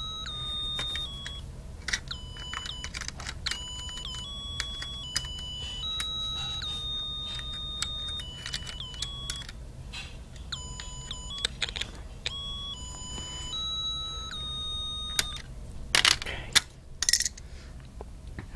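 Snap Circuits music IC playing an electronic tune of single beeping tones, each held briefly before stepping to another pitch. A few loud knocks near the end.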